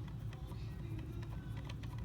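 Plastic clicks of a SMOK X Cube 2 vape mod's buttons being pressed a few times, irregularly, over a steady low hum; the mod is failing to turn on.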